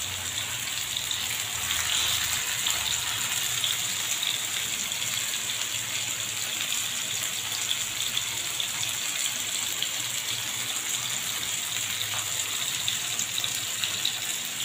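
Masala-coated fish pieces shallow-frying in hot oil in a pan, a steady sizzle with fine crackling.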